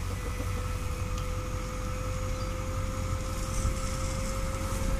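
A dump truck's engine idling steadily: a low rumble with a thin steady whine over it.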